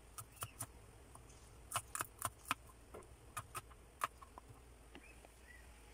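Kitchen knife chopping garlic cloves on a cutting board: faint, irregular sharp taps of the blade hitting the board, some coming in quick clusters of three or four.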